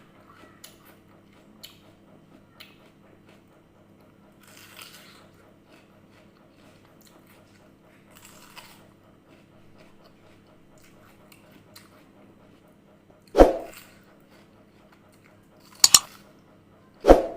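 Quiet chewing and crunching of red water apple. Three short, loud, sudden sounds come in the last few seconds.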